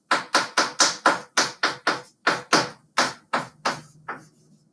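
Quick strokes of writing on a board, a rapid run of about five short, sharp strokes a second that stops about four seconds in.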